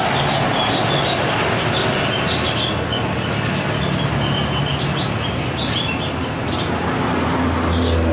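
White-eyes calling: a run of thin, high chirps and quick falling whistles over a loud, steady rushing noise.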